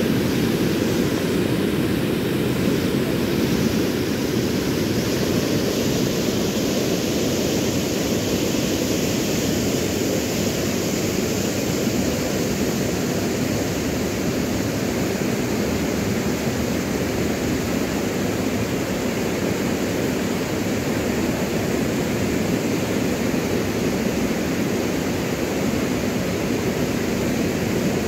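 Floodwater of a rain-swollen muddy river rushing over a low weir and churning downstream: a steady, deep rush of water that does not change.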